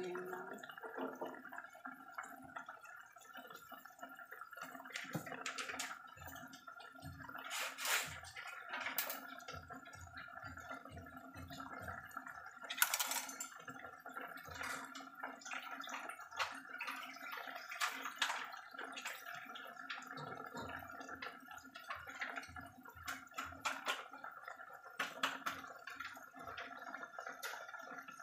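Pork humba simmering in dark sauce in a stainless steel pot: irregular bubbling and popping, with a few louder pops, over a steady low hum.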